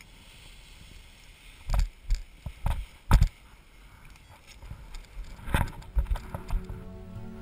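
A series of dull knocks and thumps on the pilot-carried camera, several about half a second apart, over a low rumble of wind on the microphone, during a paraglider launch. Soft music fades in near the end.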